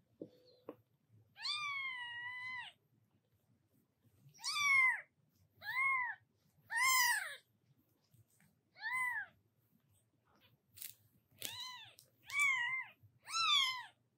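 A newborn kitten mewing repeatedly in high, thin cries: one long drawn-out mew, then seven short rising-and-falling mews.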